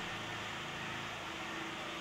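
Steady background hiss with a faint, even hum; no distinct event stands out.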